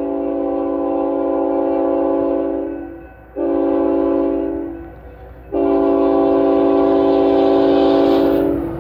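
Multi-note air horn of a Union Pacific freight locomotive sounding a chord: a long blast that dies away about three seconds in, a short blast, then a long blast held to near the end.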